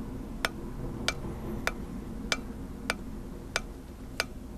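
Light, evenly paced metallic strikes with a short ring, about one and a half a second, seven in all: hammer blows on an anvil away from the microphone. A low steady hum lies underneath.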